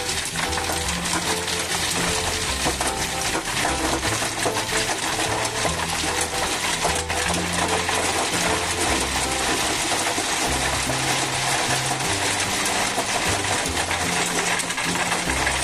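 Background music with a stepping bass line, over the steady metallic rattle of a Caterpillar compaction roller running.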